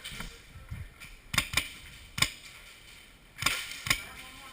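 Airsoft guns firing: five sharp cracks, a pair, then a single, then another pair.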